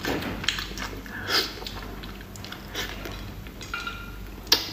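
Close-up mouth sounds of a person eating braised eel: irregular bites, sucks and chewing as the flesh is pulled off the bone, with a sharp click near the end.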